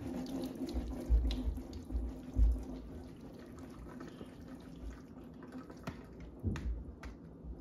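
Water draining and dripping from a plastic colander of just-rinsed boiled potatoes into a stainless steel sink, with a few soft low knocks in the first few seconds as the colander is handled.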